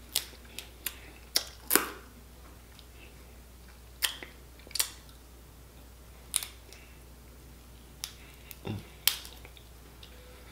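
Snow crab leg shells snapping and cracking as they are broken apart by hand, about a dozen sharp cracks at irregular intervals.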